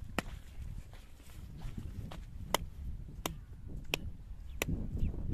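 A sharp click near the start, then four more about two-thirds of a second apart from about halfway, over a steady low rumble.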